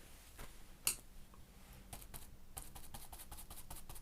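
Quiet, rapid light tapping of paint being dabbed through a stencil onto thin paper, starting about two and a half seconds in and going at several taps a second. One sharper click just before the first second is the loudest sound.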